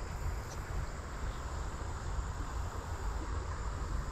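Steady outdoor background: low wind rumble on the microphone under a faint, continuous insect trill.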